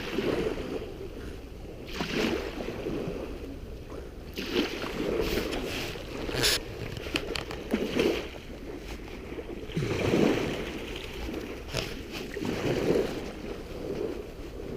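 Gusty wind rumbling on a GoPro's microphone over the wash of sea surf on a beach, swelling and easing every second or two.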